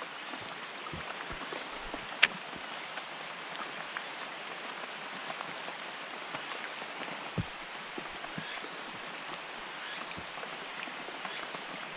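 Light rain falling steadily on the lake surface and on the gear, with one sharp click about two seconds in and a dull thump a little past the middle.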